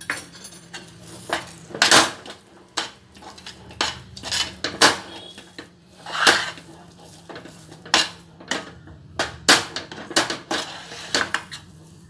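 A metal slotted spoon scraping and knocking against a stainless steel pan, stirring a thick sesame and jaggery burfi mixture in irregular strokes, roughly one or two a second.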